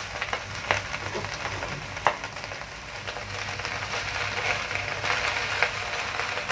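Chopped cabbage stir-frying in a hot pan: a steady sizzle that grows louder from about halfway, with a few sharp clicks from stirring against the pan.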